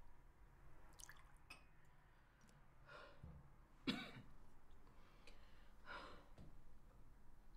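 Quiet room with a woman's single sharp cough about four seconds in and softer breaths or sighs around it. A couple of light clicks of glassware come about a second in.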